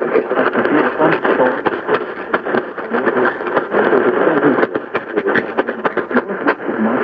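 Radio static: steady hiss with frequent crackles from a poorly received weather-radio warning broadcast, the announcer's voice lost beneath it.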